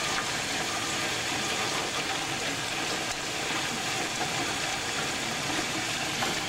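Heavy hail coming down: a dense, steady clatter of many hailstones striking hard surfaces.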